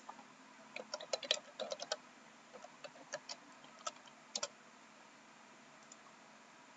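Computer keyboard typing: a quick run of keystrokes about a second in, then a few scattered key taps, ending in a double tap about four and a half seconds in, as a file name is typed.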